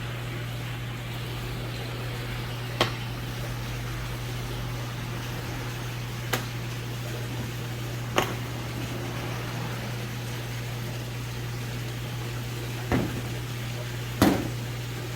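A steady low machine hum, with a handful of short, sharp clicks or knocks scattered at irregular intervals.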